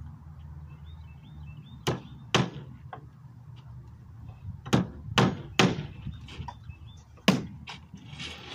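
Hammer driving nails into a wooden speaker box: sharp, irregular knocks, two about two seconds in, three close together around the middle, one more near the end, with lighter taps between.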